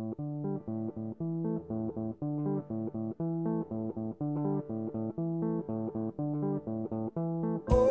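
Background music: plucked guitar notes in a steady, even rhythm. Just before the end a louder, brighter section of the music comes in.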